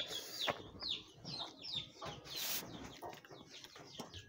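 Birds chirping over and over: short high calls that fall in pitch, several a second. A brief rushing noise comes just past the middle.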